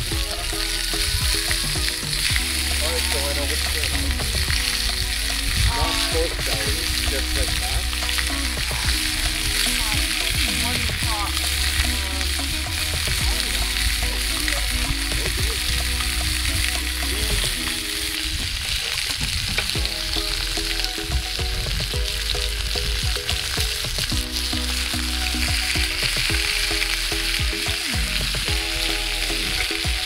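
Pork chops sizzling in a cast iron grill pan over a campfire, a steady frying hiss, with background music playing under it.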